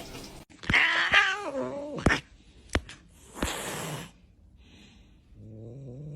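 Domestic cat in a fight standoff: a drawn-out yowl, a short hiss about three and a half seconds in, then a steady low growl starting near the end.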